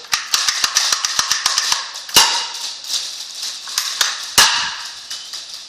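BB gun shots with a rapid run of sharp plastic clicks and taps from the pellets striking and scattering over a hard floor. The clicks are densest in the first two seconds, and there are two louder cracks, about two seconds in and again about four and a half seconds in.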